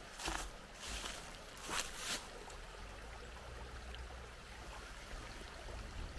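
Footsteps on a hiking trail: four steps in the first two seconds or so. After them comes a steady low rumble with a light hiss.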